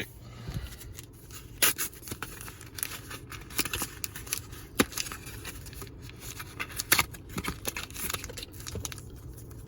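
Foil booster pack wrapper being torn open and handled, a run of irregular sharp crinkles and crackles.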